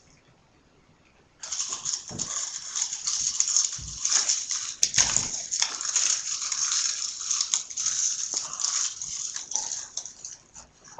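Dry saltine crackers being crunched and chewed close to the microphone: a dense run of crisp crunches that starts about a second and a half in.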